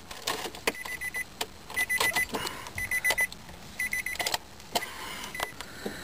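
2003 Nissan Maxima's dashboard warning chime beeping in short runs of rapid high beeps, about one run a second, with a few clicks in the cabin; the ignition is on with the engine not yet running.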